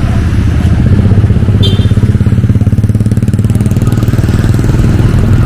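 Motorbike engine idling, a loud, steady, rapid low putter.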